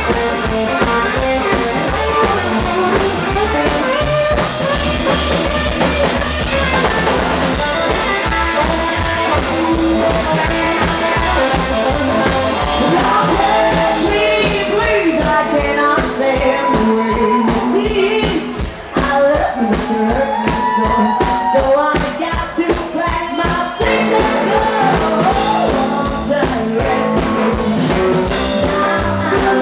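Live rock-and-roll band playing: upright bass, hollow-body electric guitar and a Gretsch drum kit keeping a fast beat, with a woman singing over them.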